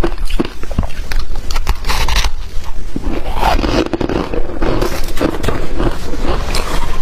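Close-miked crunching and scraping of powdery freezer frost, a dense run of crisp crackles and clicks with a short lull about two and a half seconds in.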